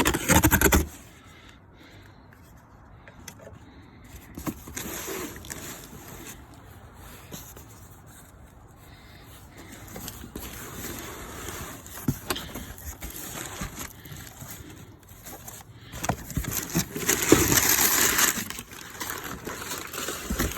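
Cardboard shipping box being opened and unpacked by hand: scraping and rustling of cardboard and packing material with scattered clicks. There is a loud burst right at the start and a longer, louder spell of rustling about 17 seconds in.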